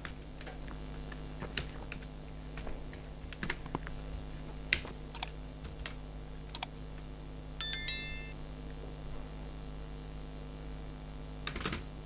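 Irregular key clicks of typing as an address is entered into a form, over a faint steady hum. About two-thirds of the way through, a short bright ringing ding with several tones sounds once.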